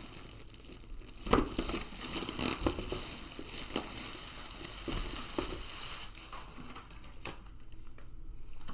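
Packaging crinkling and rustling as it is handled and cut with scissors, with several sharp clicks; the rustling dies down about six seconds in.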